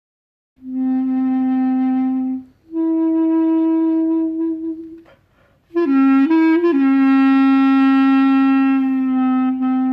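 Clarinet with a 3D-printed ceramic mouthpiece playing a slow phrase: a held note, then one a little higher, then after a brief pause a quick turn leading into a long sustained note that tapers off near the end.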